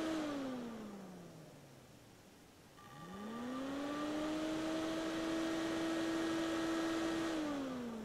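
Stock Y.S. Tech 12-volt brushless cooling fan from an Icom IC-7300, run off a 9-volt battery. Its whirring hum falls in pitch as it winds down at the start; about three seconds in it spins back up with a rising pitch, runs steadily, and near the end loses power and winds down again.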